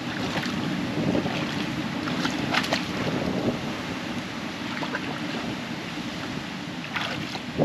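Ocean surge washing into a rock pool, the water bubbling, with a few brief splashes and wind buffeting the microphone.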